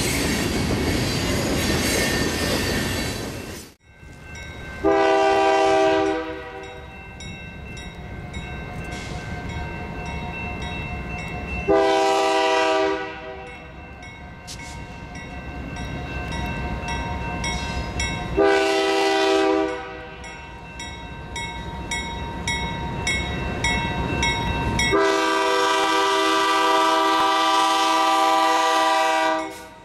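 Freight cars rolling past with a steady rumble, then after a cut a CN GE C44-9W locomotive sounding its multi-chime air horn for a grade crossing: three blasts of about a second each, several seconds apart, then one long blast of about four seconds. A crossing-signal bell rings steadily between the blasts.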